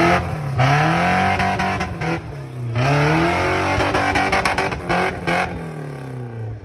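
Off-road truggy's engine revving hard in repeated surges, its pitch climbing and falling several times, under load on a waterfall rock-crawling climb.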